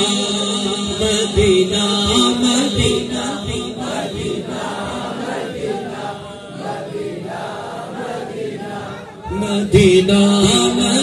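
Unaccompanied Urdu naat sung by a male singer through a PA microphone, with a crowd of men chanting along. The crowd is strongest in the middle, and the loud solo voice comes back about a second before the end.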